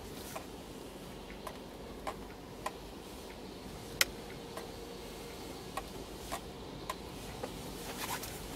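Steady low hum inside the cabin of a Mercedes 190 (W201) rolling slowly, with scattered light ticks and clicks at uneven intervals, one sharper click about four seconds in.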